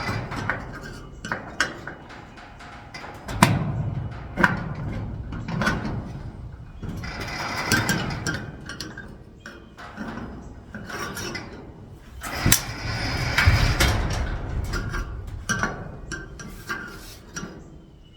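Hand tools working at a garage door's lock latch: irregular metal clicks, knocks and rattling as the old lock is worked loose.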